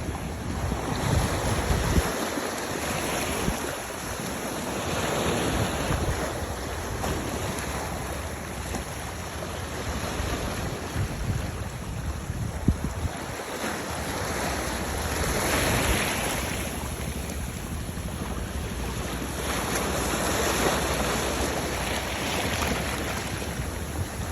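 Sea waves washing in, swelling and easing every few seconds, with wind rumbling on the microphone.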